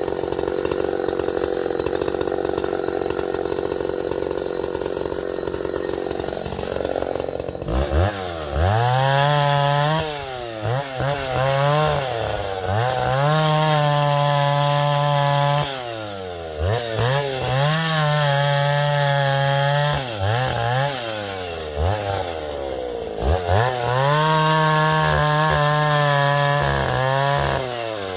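Vintage Husqvarna L65 two-stroke chainsaw running steadily for the first several seconds. From about eight seconds in it is revved up to high speed, held there and let fall back, about five times.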